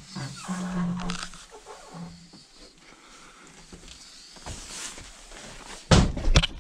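Old wooden door creaking on its hinges as it is pushed open: one long drawn creak and a shorter one about two seconds in. Near the end comes a burst of loud knocks and bumps.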